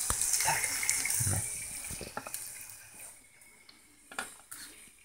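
Frying sizzle from a hot frying pan dying away over the first second or two, then a few light clicks and knocks of kitchenware being handled in near quiet.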